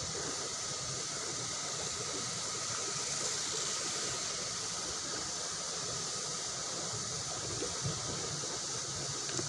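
Fast-flowing river water rushing steadily in a continuous hiss.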